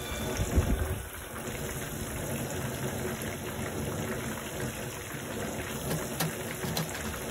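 Hot oil sizzling and bubbling as floured alligator gar pieces deep-fry in a large cast iron pan, over a steady low rumble.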